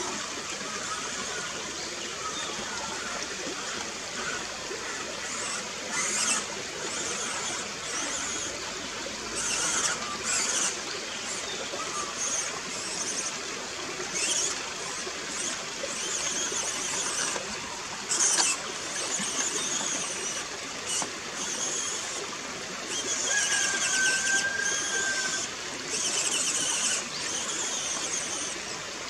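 Shallow creek water running, with the RocHobby 1:18 Unimog RC truck's 55T electric motor and metal axle gears whining in repeated short high-pitched bursts as it is driven over the creek stones.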